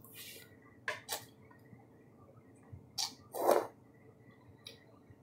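A person slurping and eating noodles in several short sucking bursts: one at the start, two quick ones about a second in, and the loudest about three and a half seconds in.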